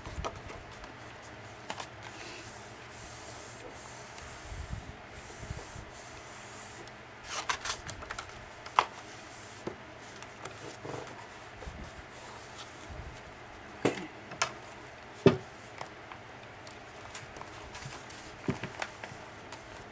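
Paper and cardstock pages of a handmade junk journal rustling and rubbing as they are flipped and smoothed down by hand, with scattered sharp taps and clicks from the card and book boards being handled.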